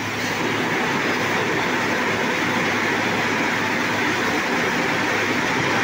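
Steady industrial din of rolling mill machinery running: a dense, even noise with a low steady hum beneath it, getting slightly louder just after the start.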